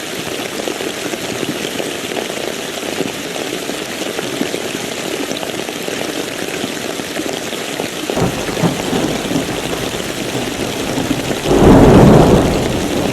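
Steady rain falling, with thunder rumbling in about eight seconds in and building to a loud thunderclap near the end.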